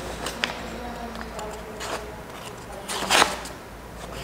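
A Japanese high-carbon-steel nakiri knife slicing down through a sheet of paper in a sharpness test: two short papery rasps, the second, a little after three seconds in, the louder.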